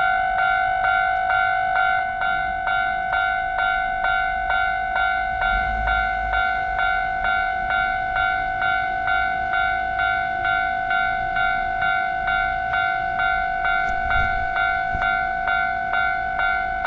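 Japanese level-crossing warning bell ringing, a repeated electronic chime at about two strokes a second, signalling that a train is approaching. A low rumble from a passing train comes underneath, strongest about five to seven seconds in and again near the end.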